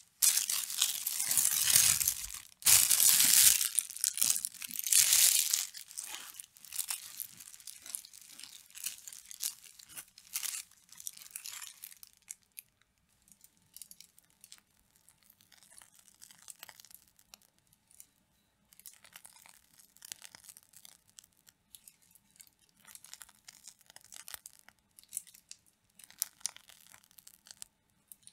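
Disposable plastic piping bag crinkling and rustling as whipped cream is scraped into it with a silicone spatula, loud for the first five or six seconds. Then fainter, scattered crinkling as the bag is squeezed to pipe cream.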